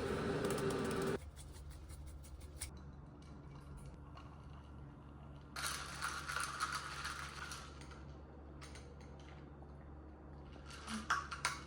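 Scattered small clicks and rattles, like objects being handled, over a faint steady hum. A louder sound with a steady tone cuts off abruptly about a second in.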